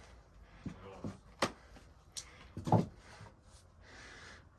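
A few scattered knocks and clunks, the loudest and longest about three-quarters of the way through.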